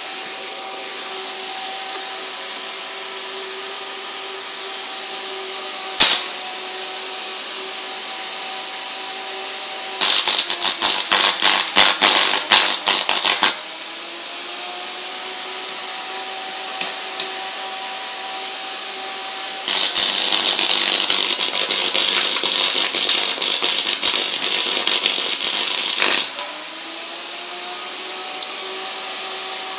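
Homemade arc-welding transformer humming steadily, broken by two spells of loud, dense stick-welding arc crackle, one of about three seconds a third of the way in and one of about six seconds past the middle. After each weld the hum slides back up in pitch, and a single sharp click comes about six seconds in.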